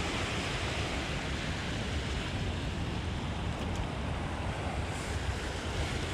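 Steady rushing of wind on the microphone mixed with small waves washing onto the sandy shoreline.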